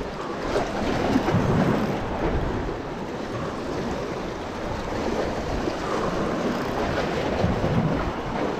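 Small sea waves washing against shore rocks, with wind buffeting the microphone. The wash swells about a second in and again near the end.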